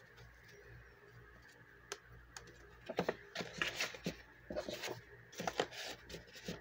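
Paper banknotes rustling and crinkling as they are handled and slid into a cardstock envelope: quiet at first, then from about three seconds in a quick run of short, crisp rustles and taps.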